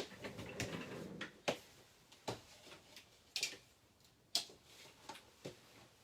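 Irregular light clicks and taps, about nine in six seconds, from things being handled and set down on a craft desk, with a soft low rustle in the first second.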